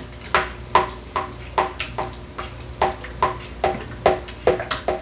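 A utensil stirring thick cheese sauce in a pot, knocking against the pot about two to three times a second, each knock leaving a short ringing tone.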